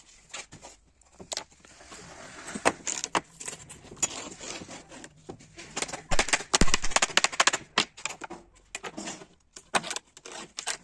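Sharp metallic clicks and clinks from hand tools and a strip of edge trim being handled and cut with snips, coming quickest about six seconds in.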